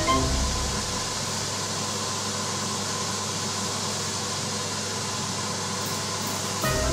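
Steady rushing hiss of workshop machinery running, with a low hum underneath. Background music fades out about a second in and comes back near the end.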